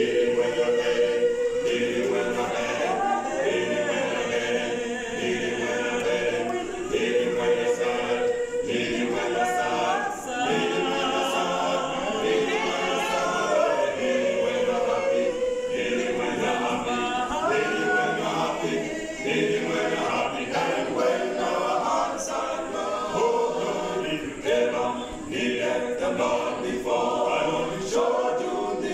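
A male vocal group of seven singing a gospel song a cappella, several voices in parts, with no instruments.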